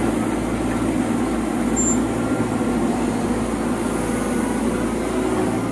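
CAT 313F hydraulic excavator's diesel engine running steadily as the machine works a soil pile, with a low hum and a steady mechanical noise.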